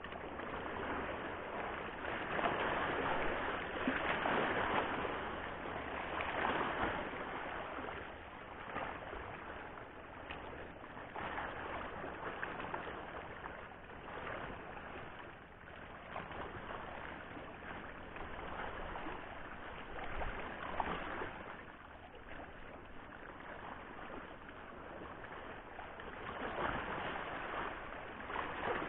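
Sea water washing against shoreline rocks, a steady rush of water that swells and ebbs every few seconds.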